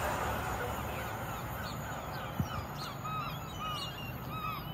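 Birds calling in a run of short arched chirps from about a second and a half in, over the fading rumble of a train that has just passed. A single sharp knock about halfway through.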